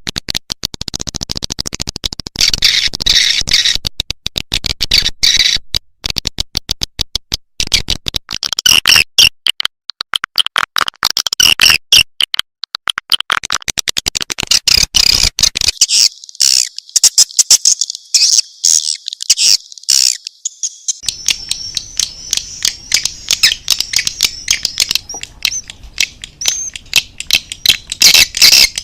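Swiftlet call recording: dense, rapid high-pitched chirps and twitters of swiftlets, broken by short choppy gaps, with a few brief gliding notes in the second half. It is the kind of call played to lure swiftlets into a nesting house.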